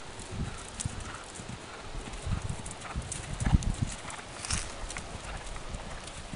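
Horse cantering on grass: a run of dull hoofbeats, a few to the second, loudest about three and a half seconds in.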